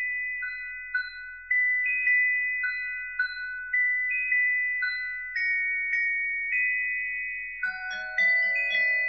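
Background music: a slow melody of bell-like, ringing struck notes, about two a second, with lower notes and a quicker pattern joining in near the end.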